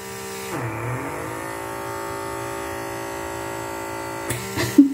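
Small electric motor of a handheld pore vacuum (blackhead suction cleaner) whining steadily while held to the nose; its pitch drops about a second in, then holds level.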